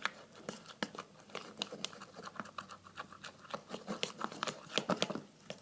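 White glue and Tide laundry detergent being stirred together in a bowl to make slime: irregular sticky squelches and clicks of the stirring utensil against the bowl.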